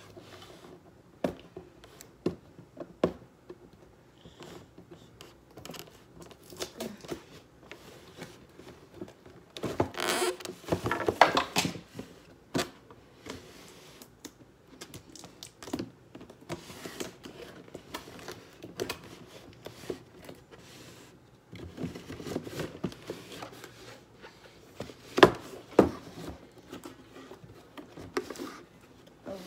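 A toy's cardboard box and clear plastic packaging being handled and pulled apart: scattered clicks and taps, with a stretch of loud plastic crinkling and rustling about ten seconds in and more handling noise later.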